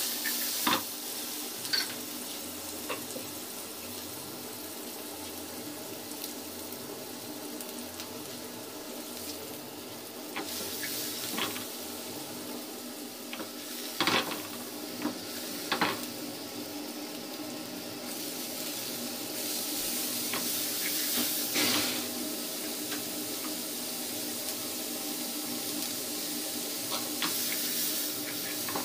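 Chopped onion and bell peppers sizzling as they fry in a nonstick frying pan, with a few sharp knocks and scrapes as the pan is shaken and the vegetables stirred. The sizzle swells for a couple of seconds about two-thirds of the way through.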